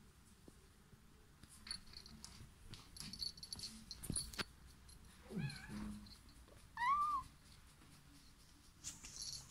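Russian Blue cat meowing twice: a falling meow about five seconds in, then a short, louder meow that rises and falls a couple of seconds later. Light clicks and rustling come before the meows.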